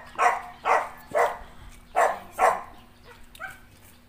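Dog barking: five short, loud barks in the first two and a half seconds, some in quick pairs, then it stops.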